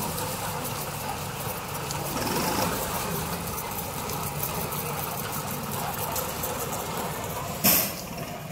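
A New Holland tractor's diesel engine running steadily while it drives a tractor-mounted hydraulic sugarcane harvester cutting cane. A single sharp, loud crack comes near the end.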